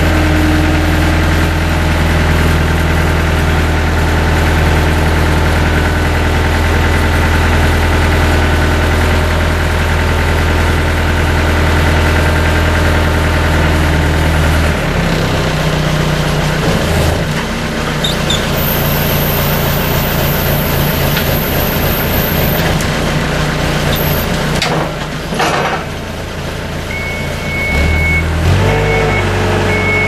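Terex TX5519 telehandler's diesel engine running steadily while it works its boom, with the engine note changing about halfway through. Near the end its reversing alarm beeps in a regular pattern.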